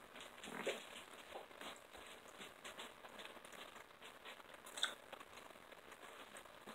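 Faint eating sounds of chicken on the bone being bitten and chewed: soft chewing, lip smacks and scattered small clicks, with two sharper sounds, one under a second in and one just before five seconds.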